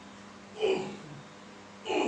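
A single short vocal sound, a gasp-like 'ah' with falling pitch, about half a second in, over a faint steady hum.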